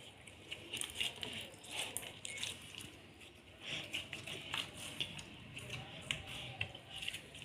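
Slime being kneaded, squeezed and stretched by hand: soft, sticky squishes with many small, irregular pops and clicks as it pulls apart and off the fingers and countertop.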